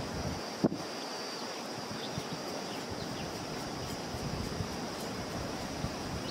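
Wood campfire burning with small scattered crackles over a steady rush of river water and a steady high drone. One sharp thump a little under a second in is the loudest sound.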